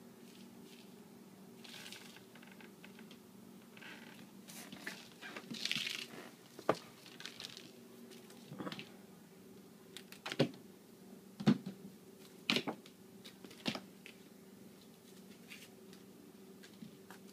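Kitten playing with a feather wand toy: rustling of the feathers and scattered sharp taps and clicks of paws, claws and the toy on a vinyl floor, busiest in the middle, over a steady low hum.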